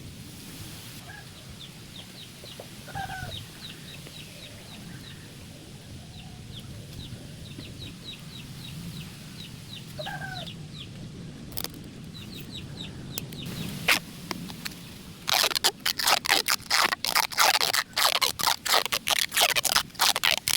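A chicken calls twice over a run of quick, high repeated chirps. Near the end, a fast series of loud rasping strokes takes over.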